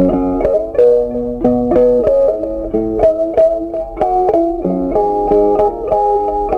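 Background music: a plucked string instrument picking out a melody, about two or three notes a second.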